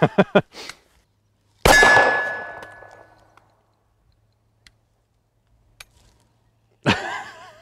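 A single shot from a Kahr CW9 9mm pistol about two seconds in, followed by a ringing tone that dies away over about a second and a half, typical of a hit on a steel target. Near the end comes a loud burst with a man's voice.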